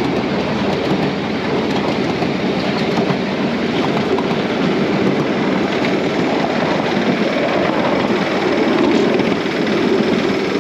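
Ride-on toy train running along its narrow track, heard from aboard as a steady rumble of wheels on rails.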